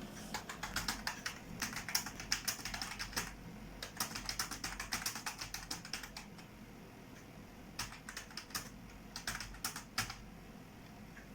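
Typing on a computer keyboard: rapid, continuous keystrokes for about six seconds, then a brief pause and a few scattered clicks that stop near the end.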